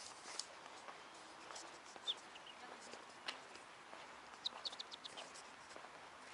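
Faint, scattered bird chirps, with a quick run of short high chirps about four and a half seconds in.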